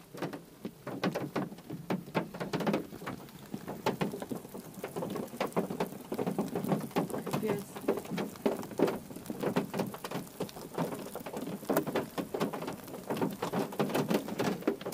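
Large raindrops striking the car at the start of a rain shower, heard as many separate sharp taps at an uneven rate.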